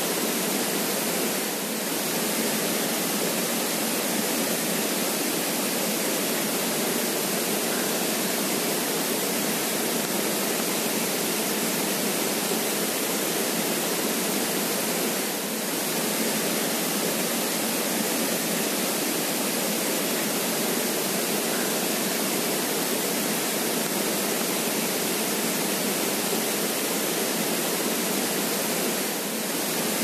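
Creek water flowing in a steady, even rush, with a slight dip in level about every fourteen seconds.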